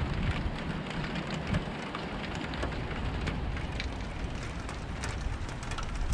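Steady rain falling during a thunderstorm, with many separate drops ticking sharply over a continuous hiss and a low rumble underneath.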